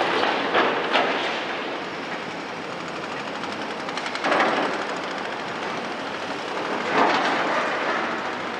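Volvo EC300 excavator loading a dump truck. Demolition rubble crashes from the bucket into the truck's bed in sharp impacts about half a second and a second in. Further surges of scraping, clattering rubble come around four and seven seconds in, over the machines' steady running noise.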